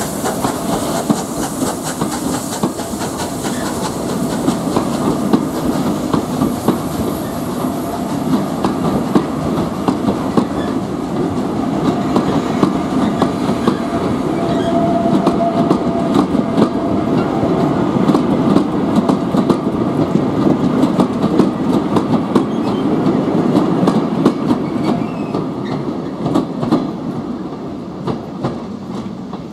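Passenger coaches of a departing steam train rolling past at low speed, their wheels clicking steadily over the rail joints. The sound fades near the end as the last coach moves away.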